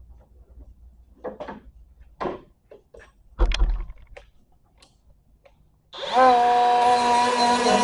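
A few knocks and clatters of handling, then about six seconds in a Ryobi 18V brushless die grinder spins up with a quick rising whine and runs at steady speed.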